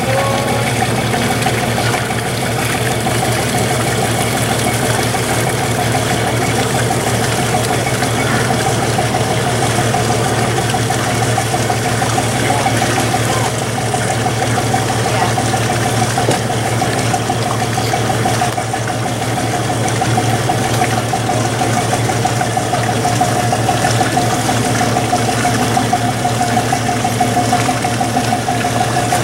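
Steady machine hum, a low drone with a constant higher whine over it, holding level and pitch throughout.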